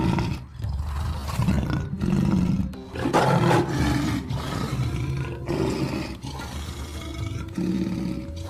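Lion roaring: a run of deep, gritty roars and grunts, one after another, each about a second long.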